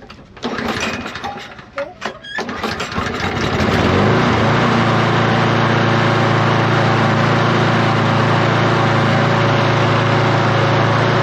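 Toro Recycler lawnmower engine being pull-started: it catches about three seconds in, rises to speed, and then runs steadily.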